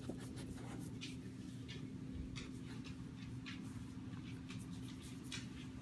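A Boxer sniffing and mouthing at a hand makes faint scattered rustles and small soft clicks, over a steady low hum.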